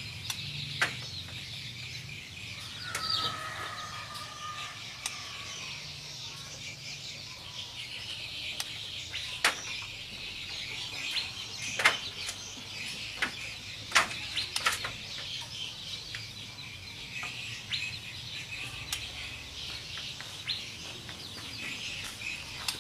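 White-rumped shama (murai batu) calling in its cage: scattered sharp clicking notes and one short falling whistle about three seconds in, over a steady high hiss.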